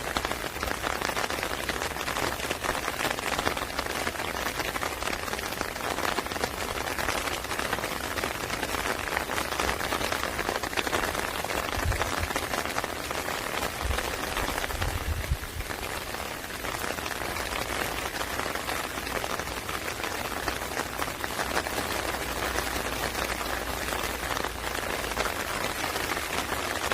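Rain falling steadily, a dense patter of drops, with a few brief low thuds about twelve and fifteen seconds in.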